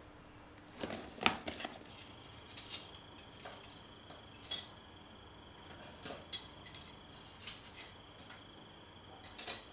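Shards of broken picture-frame glass clinking and scraping on a wooden floor as they are gathered by hand, in scattered light clinks a second or so apart.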